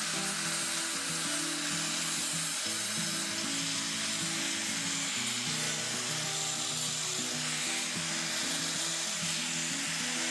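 Angle grinder with a thin cut-off disc cutting through 13 mm steel rebar: a steady grinding noise, with background music underneath.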